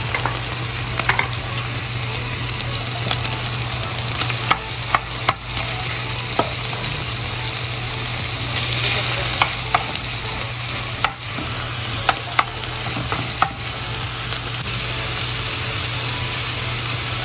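Beef strips sizzling as they fry in olive oil in a nonstick pan, a steady hiss broken by scattered sharp pops and clicks, over a steady low hum.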